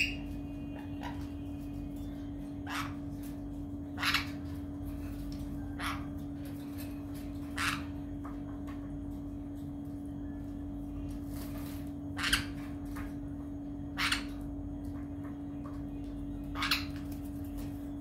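Pet parrot giving short squawks, about eight of them a second or few seconds apart, over a steady low hum.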